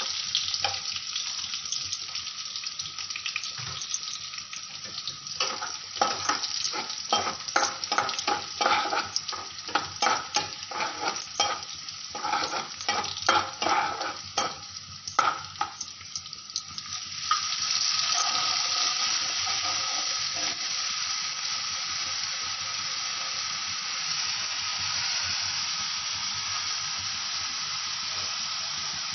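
Sliced onions sizzling in hot oil in a nonstick frying pan, with a metal spatula stirring and scraping against the pan in quick irregular strokes. About seventeen seconds in, the strokes stop and the sizzle grows louder and steadier as a wet tomato-spice paste goes into the hot oil.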